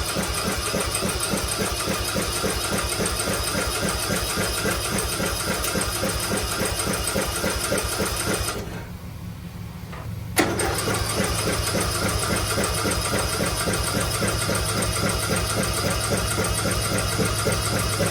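Electric starter cranking a 13-horsepower small engine, which turns over in an even rhythm without catching. The cranking stops about halfway through and starts again after a click about two seconds later.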